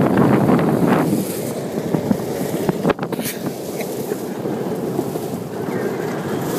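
Wind buffeting the microphone over the rumble and crunch of a Bad Boy Buggy off-road golf cart driving along a gravel and dirt trail, with a brief lull about three seconds in.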